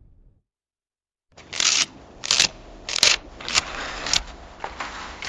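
Camera shutter clicking repeatedly, about seven quick mechanical bursts roughly half a second apart over a faint whirr, starting after a brief silence. A low rumble dies away at the very start.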